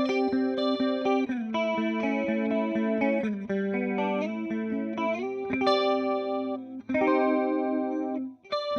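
Electric guitar, a Fender Jazzmaster Modern Player with humbuckers, played through a Boss CE-2 analog chorus pedal. Picked chords and notes ring on with a chorus effect, changing chord every second or so. The playing stops briefly near the end, then starts again.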